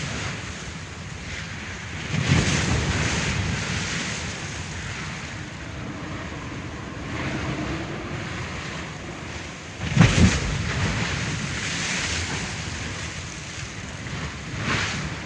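Sea waves breaking on a shore, a steady wash of surf that swells at intervals, with one sharper crash about ten seconds in.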